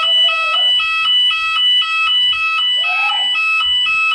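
Store fire alarm sounder playing a loud electronic two-tone alarm that switches rapidly back and forth between two pitches.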